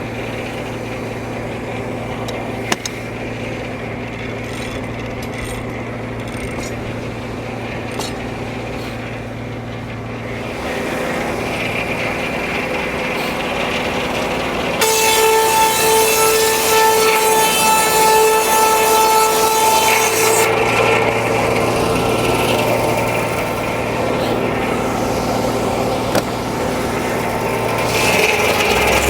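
Frick No. 1 sawmill running: its circular head saw spins with the power unit running steadily beneath. About halfway through, the blade cuts into the log for roughly six seconds with a loud, high whine, and another cut begins near the end.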